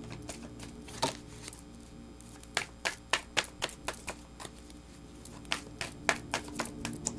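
Tarot cards being shuffled by hand: a string of sharp, irregular clicks and taps that come in bunches.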